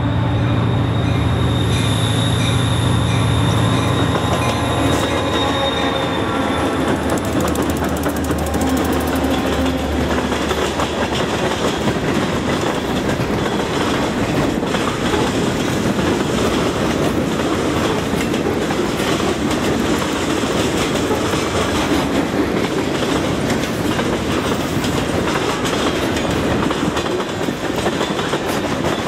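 Diesel freight locomotives run past with a steady low engine drone and a thin high whine for the first few seconds. Then a string of freight cars (boxcars and tank cars) rolls by close up, with continuous rattling and clicking of steel wheels on the rail.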